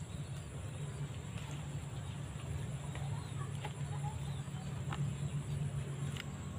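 Quiet outdoor background with a steady low hum, a few faint ticks and some short faint calls.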